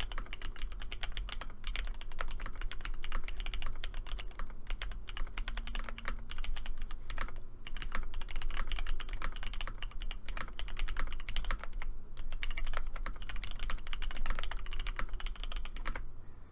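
Fast, continuous typing on a mechanical keyboard with linear switches, a steady run of key clacks with a short pause near the end.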